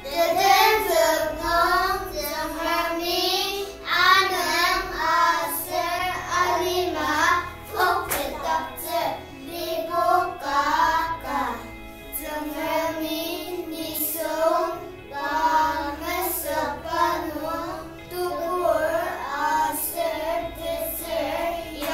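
A small group of young children singing a song together.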